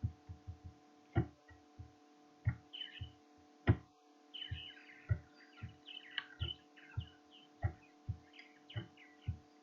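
Irregular soft clicks and low thumps, about two or three a second, from a computer mouse and desk being worked, over a steady electrical hum. Faint high chirps come in around the middle.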